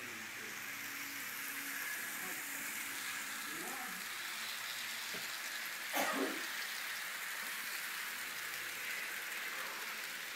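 Toy slot cars and model trains running on the layout's tracks, making a steady high whirring hiss. A single sharp knock comes about six seconds in.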